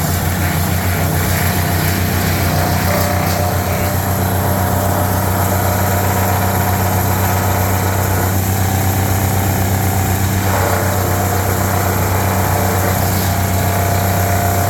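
Wood chipper's engine running steadily, just restarted after the chipper was cleaned out to keep it from clogging.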